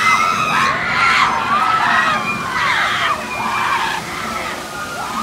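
Many riders screaming together on a Huss Giant Top Spin ride as the gondola swings them upside down, a mass of overlapping shrieks that rise and fall, easing a little near the end.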